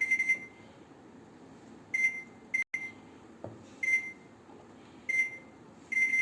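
Microwave oven keypad beeping as the cooking time is set. A rapid string of high beeps stops just after the start, then five single short beeps follow at uneven intervals.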